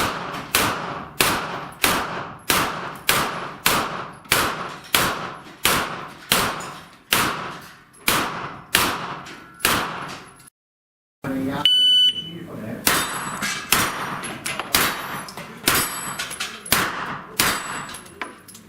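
Rapid strings of gunshots at a steel-plate shooting match, about one and a half to two shots a second, each followed by a short ringing tail. After a break about ten seconds in, an electronic shot-timer start beep sounds, and a second fast string of shots follows.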